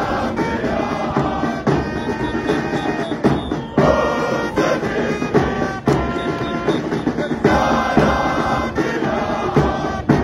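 A crowd of football ultras singing a chant together over a steady beat of stand drums.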